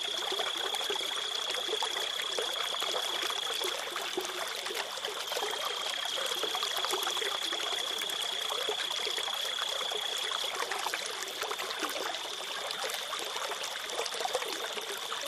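Steady running-water sound, with a thin high steady tone over it.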